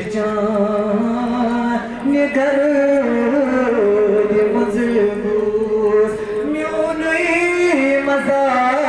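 A man singing a naat solo: long held notes that step and slide between pitches, with brief pauses for breath.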